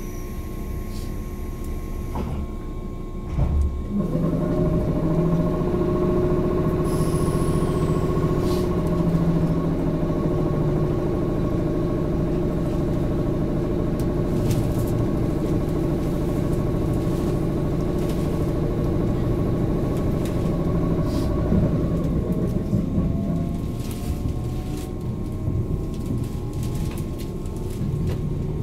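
JR 185 series electric train pulling out of a station, heard from inside the car: a clunk and a sudden rise in level a few seconds in, then a steady hum from under the floor. About three quarters of the way through, the whine of its MT54 traction motors rises in pitch as the train picks up speed.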